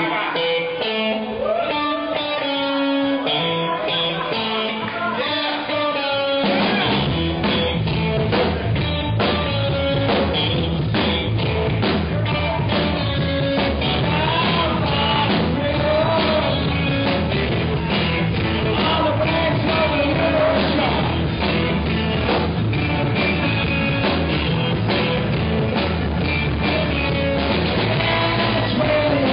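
A rock band playing live: a guitar line for the first six seconds or so, then bass and drums come in with the full band, and a voice sings over it.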